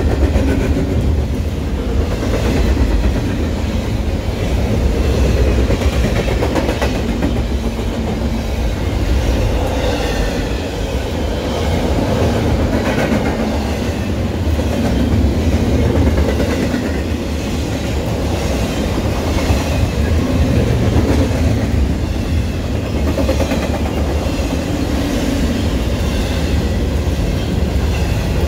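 Double-stack container freight train rolling past close by: a steady, loud rumble of the well cars' steel wheels on the rails, unbroken throughout.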